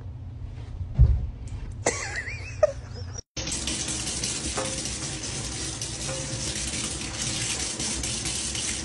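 A thump about a second in over a low hum, then, after a brief gap, a kitchen tap running a steady thin stream into a stainless steel sink.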